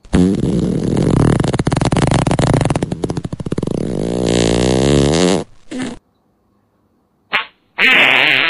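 A long, loud, rapidly fluttering fart sound lasting about five and a half seconds, its pitch wavering as it goes, then a short burst. Another loud sound starts near the end.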